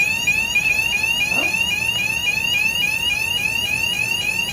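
Electronic fire alarm sounder giving a loud, fast, repeating rising sweep tone, about three sweeps a second.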